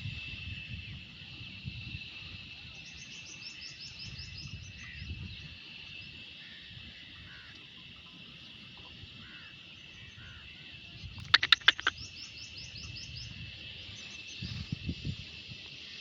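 Outdoor ambience: a steady high insect drone, with a bird chirping in quick series twice. About eleven seconds in come four sharp, loud clicks close together.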